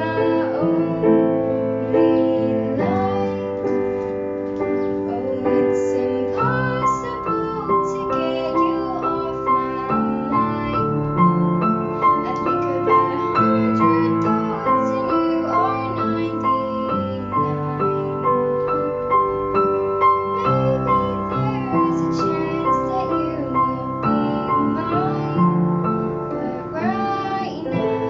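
A girl singing a slow pop ballad with piano accompaniment.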